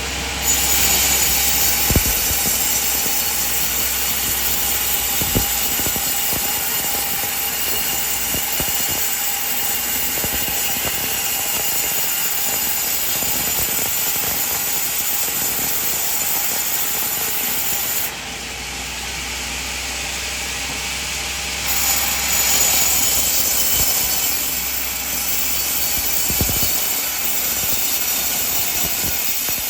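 Band sawmill cutting a coconut log: a steady, high-pitched hiss and whine of the blade in the wood, with a few sharp knocks. Around eighteen seconds in, the high hiss drops away and the machine runs more quietly for a few seconds. Then the sawing picks up again, louder.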